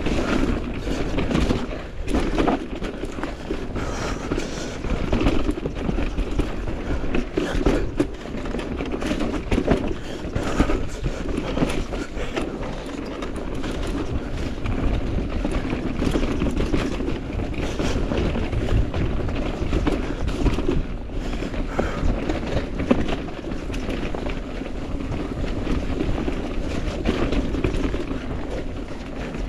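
Mountain bike riding down a dirt trail: steady tyre and wind noise with frequent knocks and rattles from the bike over rough ground.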